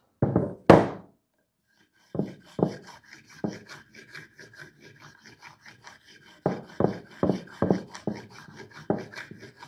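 Two knocks as a wooden block is handled on a workbench, then a marker dragged across the block's freshly planed face in a long series of short scratchy strokes, marking the surface to show up planer snipe.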